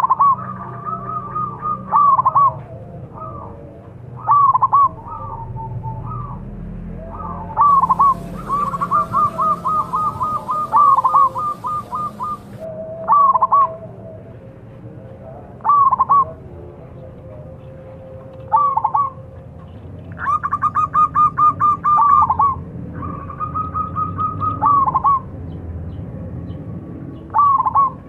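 Zebra dove (perkutut) cooing: about a dozen phrases of quick, rolling coos at a steady pitch, repeated every couple of seconds, some drawn out into longer rattling runs.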